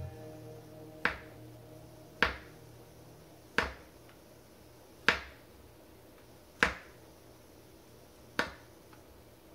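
Chef's knife slicing white button mushrooms on a plastic cutting board: six sharp knocks of the blade meeting the board, roughly one every one and a half seconds.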